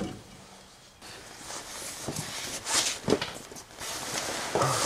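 Irregular knocks, clicks and scraping of hand tools and metal parts being worked while setting backlash on a Chrysler 9 1/4 rear axle's ring and pinion, loudest about three seconds in.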